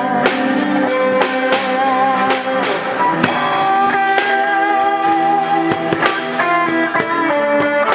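Three guitars and a drum kit playing an instrumental piece together: a lead guitar holds notes with vibrato over guitar chords, with a steady beat on the drums.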